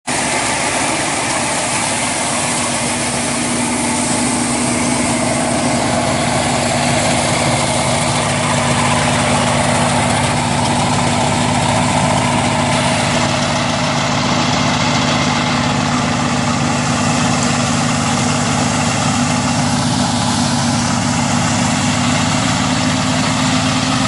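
Small crawler-type combine harvester running steadily as it harvests rice: a steady engine hum over dense, unchanging mechanical noise.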